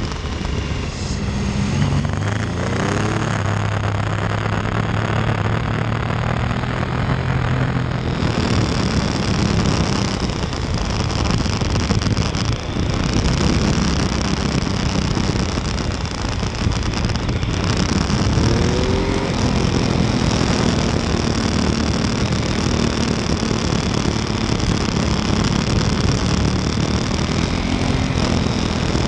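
Motorcycle engine running under way with heavy wind rush, the revs rising and falling twice, near the start and about two-thirds of the way through, as it works through bends.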